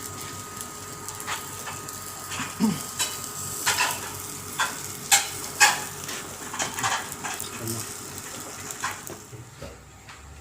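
Food sizzling over a charcoal grill, a steady hiss with sharp crackles and clicks coming irregularly, thickest in the middle.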